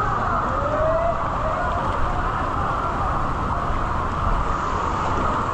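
Motorcycle engine running steadily under a dense rush of noise, with a short rise in pitch about half a second in.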